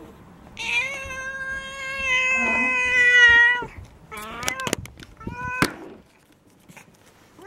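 Domestic cat meowing: one long drawn-out meow of about three seconds, then two short meows, with a few sharp clicks around them.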